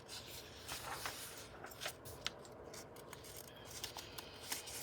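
Pages of a book being handled and turned, giving soft paper rustles and a few light clicks.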